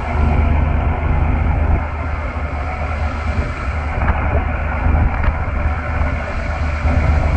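Fishing trawler's inboard diesel engine running steadily, a low rumble.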